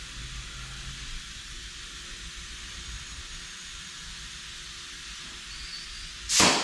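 A steady hiss with a faint low hum, then a single loud knock or bang near the end.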